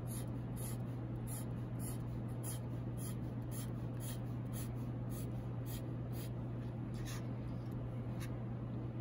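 Sharpie permanent marker drawing short strokes on paper, about two strokes a second, over a steady low hum.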